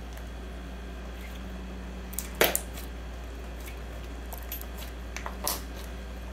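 Thick honey slime with clay being kneaded into it, pressed and folded by hand. It is stiff, hard to work, and takes a lot of strength. A few soft clicks and two louder sticky squelches, one about two and a half seconds in and one near the end, sit over a steady low hum.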